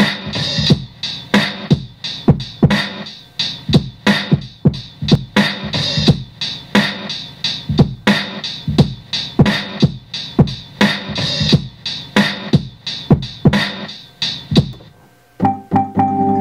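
Boom-bap hip-hop drum beat programmed on a Maschine MK3, with a steady pattern of hard hits that stops about fifteen seconds in. Sustained keyboard notes begin near the end as the pads are played.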